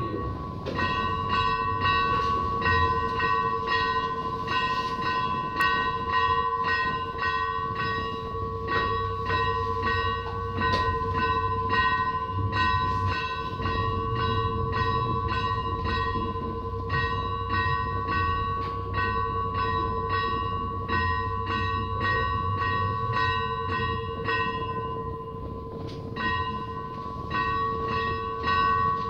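Greek Orthodox church bells rung for vespers, struck rapidly about two or three times a second over a steady ringing hum, with a brief break in the strokes near the end.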